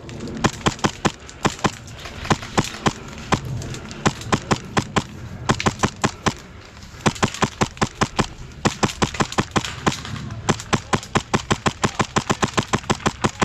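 Airsoft guns firing: strings of sharp cracks at several shots a second, with brief pauses between strings, the densest near the end.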